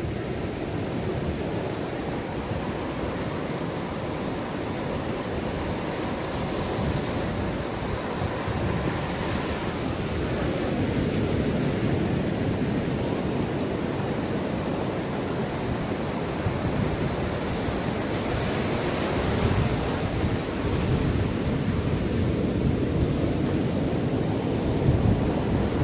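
Ocean surf washing onto a beach: a continuous rush of breaking waves that swells twice, about a third and two thirds of the way through, then eases back.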